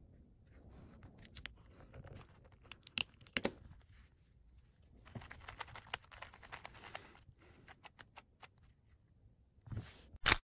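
Plastic clicks and clacks of a GAN 356 XS speedcube being handled. There are a few sharp snaps as centre caps are pressed on. In the middle, about two seconds of face turns make a quick clicking rattle. Near the end there is one louder knock as the cube is set down.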